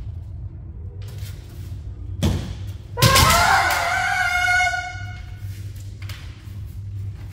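Kendo bout: a thud about two seconds in, then a sharp strike followed at once by a woman's high kiai shout, held for nearly two seconds before it breaks off.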